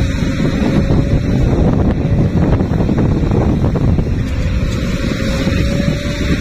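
Loaded dump truck's diesel engine running as it pulls away, under a steady low rumble of wind on the microphone; a faint thin whine comes through in the second half.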